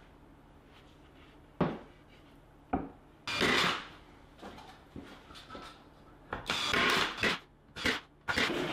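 Plywood shelf being handled and fitted between plywood cabinet sides: a few sharp wooden knocks, the first about one and a half seconds in, and two longer scraping noises, with two more knocks near the end.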